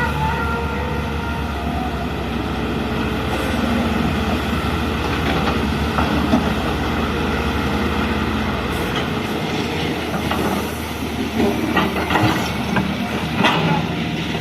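Excavator's diesel engine running steadily under a whine of the hydraulics, with scattered clanks and knocks in the second half.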